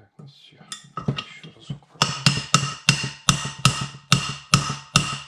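Hammer striking a mandrel to drive a valve seat insert into a heated aluminium cylinder head. A few light taps come first, then about nine sharp, ringing metal blows at roughly three a second, which continue until the seat is felt to bottom out.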